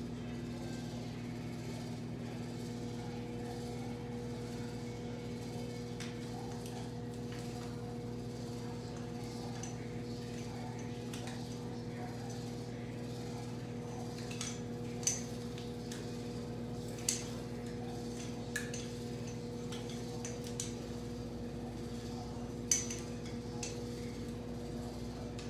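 A steady low electrical hum, with scattered light clicks that are loudest in the second half: a hair flat iron's plates clacking shut and being handled as it is drawn through wig hair.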